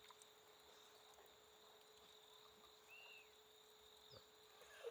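Near silence: faint outdoor background with a steady thin high insect drone.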